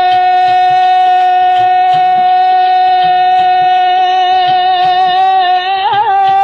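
Punjabi Sufi folk song: a male singer holds one long high note without words, breaking into a quick wavering ornament near the end before it stops. Light percussion ticks underneath.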